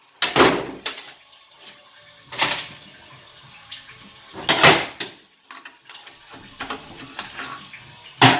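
Metal parts of a 700R4 automatic transmission clattering and clinking as it is taken apart, in several short bursts with lighter clicks between them.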